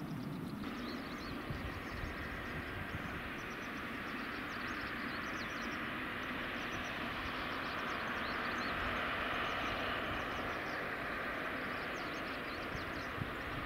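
Distant jet engine noise from a Boeing 777-300ER's GE90 turbofans, a steady hiss that swells slightly about two-thirds of the way through. Small birds chirp high above it throughout.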